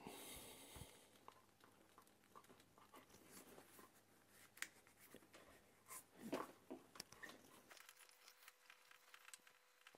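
Near silence, with faint rustling and a few small clicks from heat-shrink tubing being slid by hand along a thick orange high-voltage cable.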